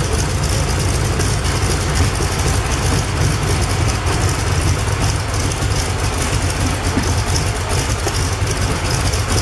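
Continental R-670 seven-cylinder air-cooled radial engine running steadily at a constant speed on a test stand.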